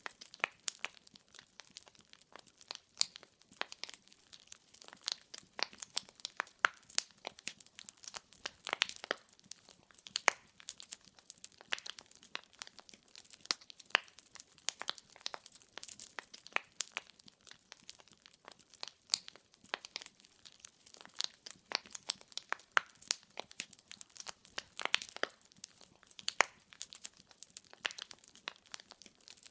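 Wood fire burning in a fireplace: logs crackling and popping irregularly, many sharp snaps a second over a faint hiss.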